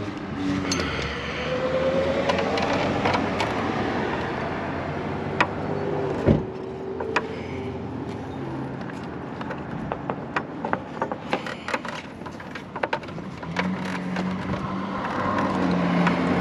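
Scattered metallic clicks and knocks, the loudest a single sharp knock about six seconds in, as a Tokico front brake caliper with new pads is worked back over the disc rotor of a Suzuki GSX-R1000. Vehicle noise runs in the background.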